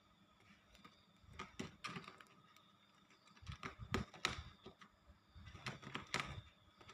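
Domestic cat coughing in three short bouts of hacking, roughly two seconds apart.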